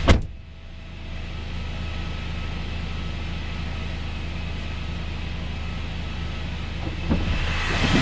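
A car engine idling steadily, with a sharp click right at the start. A few small clicks and a rising hiss come in near the end.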